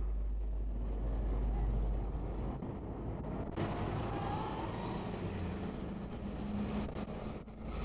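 Distant road traffic as a steady wash of noise over a constant low hum. About three and a half seconds in, the noise turns brighter and fuller.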